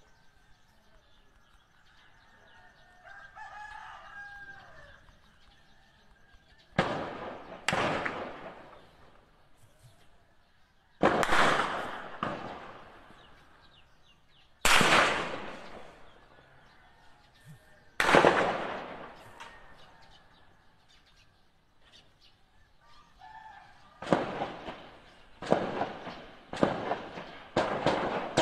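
Gunshots fired one at a time at irregular intervals, each followed by a long echoing tail: about a dozen in all, coming faster near the end. A rooster crows a few seconds in.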